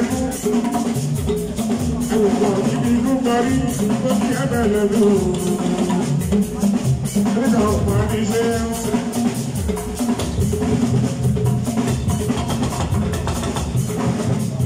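Live band music with a drum kit and percussion keeping a steady beat, and a man singing into a microphone over it.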